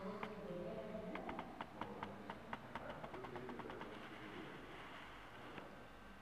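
A run of faint, light clicks, irregular and sometimes in quick clusters, thinning out after about three and a half seconds, with faint indistinct voices in the first second.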